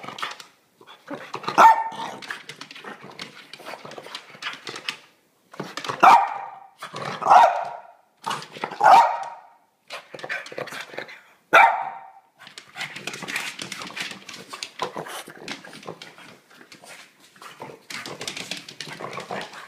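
French bulldog barking about five times in short, sharp barks, with busy scuffling and clicking between the barks.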